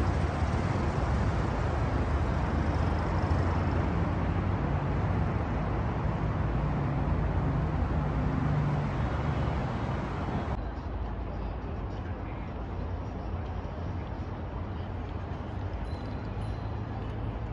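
Road traffic: a steady wash of passing cars with a low engine hum. About ten seconds in it drops abruptly to a quieter, duller steady hum.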